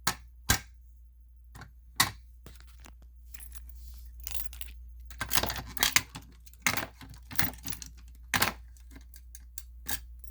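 Irregular clicks, knocks and small metallic rattles of a Simplex fire alarm pull station being handled, some coming singly and some in quick clusters; no alarm tone sounds.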